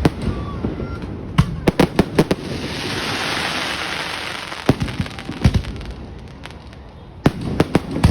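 Fireworks going off: irregular clusters of sharp bangs, with a swell of hissing crackle in the middle before more bangs follow.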